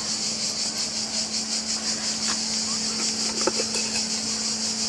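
Cicada chorus: a dense, high-pitched buzz with a fast pulse, over a steady low hum.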